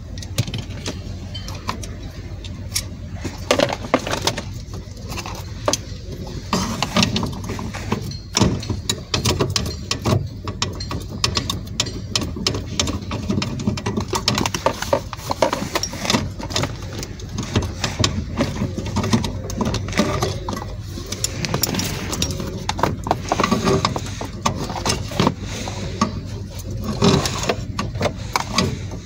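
Hand ratchet wrench clicking in irregular runs, with metal tool clinks and knocks, as the bolts holding a clutch pedal box are loosened under the dashboard.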